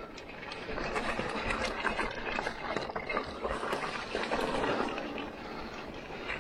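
Bike rolling over a rough, muddy trail: a steady rush of tyre and trail noise with many irregular crunches, rattles and knocks.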